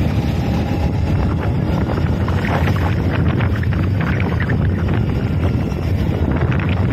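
Motorcycle riding along the road, its engine and tyres under a steady rush of wind buffeting the microphone.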